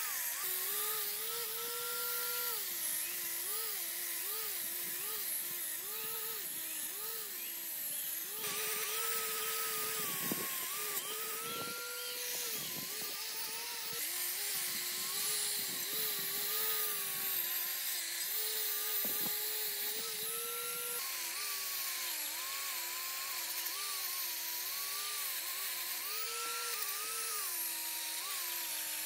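Angle grinder with a wire brush scrubbing rust off the metal of an electric motor's housing and mounting bracket. Its motor whine keeps wavering up and down as it bites into the metal, over a steady high hiss from the wire, with a few short knocks.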